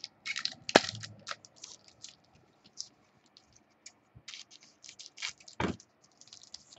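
Trading cards being handled and sorted by hand: a run of irregular light scrapes, flicks and clicks of card edges and sleeves, with a sharp click a little under a second in and a duller knock near the end.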